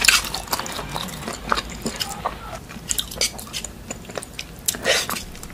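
Close-up eating sounds of two people chewing food: mouth noises and lip smacks as a string of short, irregular clicks, with a slightly louder one near the end.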